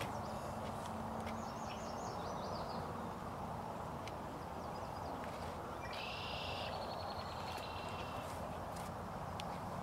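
Outdoor ambience: a steady rush of background noise, with a songbird singing twice, a quick high trill about a second in and a louder song about six seconds in.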